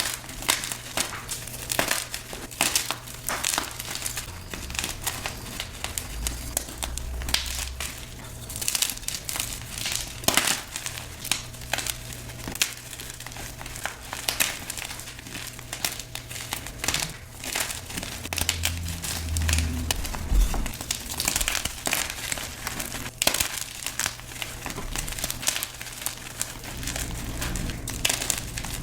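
Blocks of gym chalk being crushed and crumbled by hand: a continuous run of irregular crisp crunches and crackles.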